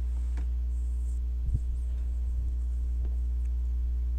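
A steady low hum with a ladder of even overtones, unchanging throughout, with a few faint clicks, the clearest about a second and a half in.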